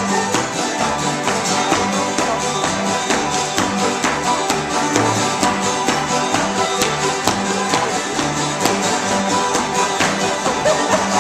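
An acoustic string band plays a lively tune, with guitars strumming, while dancers' shoes tap a wooden floor in steady time.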